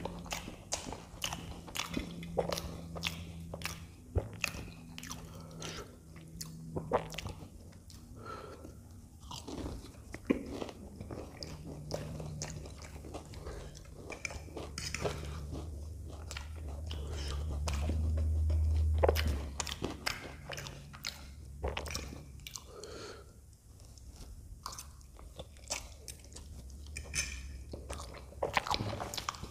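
Close-miked eating: wet chewing, lip smacks and slurps of soupy Maggi instant noodles, with crunchy bites of fried samosa pastry as many short sharp clicks. A low rumble swells and peaks about two-thirds of the way in.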